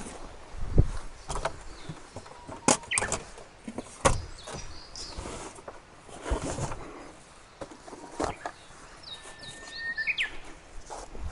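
Scattered knocks and clicks of handling, with a bird chirping a few times near the end.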